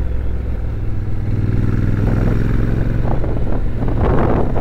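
Motorcycle engine running while riding uphill, its note rising in pitch about a second in as the revs pick up.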